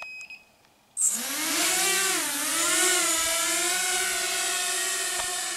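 Walkera Rodeo FPV racing quadcopter's motors and propellers spinning up suddenly about a second in as it lifts off. They settle into a steady, high buzzing whine that wavers in pitch and slowly fades as the drone flies away. A brief electronic beep sounds at the very start.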